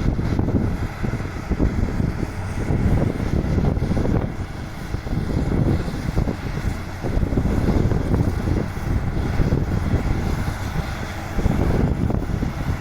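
Diesel engine of heavy construction machinery running, a low, uneven rumble that swells and dips.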